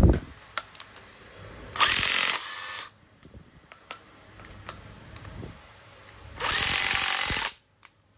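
National (Panasonic) EZ6502 12 V cordless angle impact driver hammering in two short runs of about a second each, near 2 s and near 7 s in. Each run cuts off abruptly, as the tool's impact-counting auto-stop mode shuts it off while the trigger is still held. A brief thump comes at the very start.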